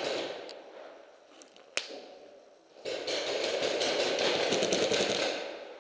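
Paintball markers firing in rapid strings, a dense run of cracks that fades during the first second, one single sharp shot a little under two seconds in, then another long rapid string from about three seconds in until shortly before the end.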